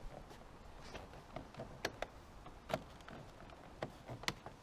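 A handful of light, sharp clicks and knocks, spread out, from plastic car door trim and switch parts being handled and fitted.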